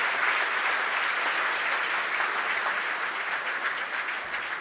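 Crowd applauding, slowly dying down.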